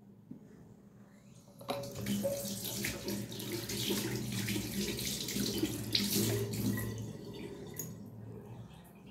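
Water running, starting suddenly about two seconds in and easing off near the end.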